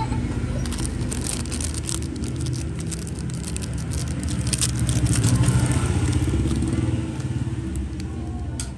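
A motor vehicle engine running, growing louder about five seconds in and then fading, with scattered sharp clicks and scrapes over it.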